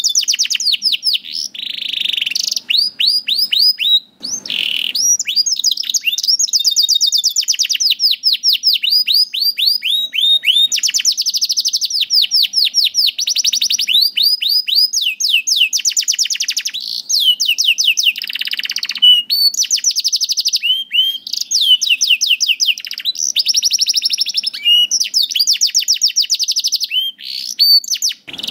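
Domestic canary singing a long, continuous song of fast trills. Each trill is a quick run of repeated falling notes, and the song switches to a new trill every second or two, with a short break about four seconds in.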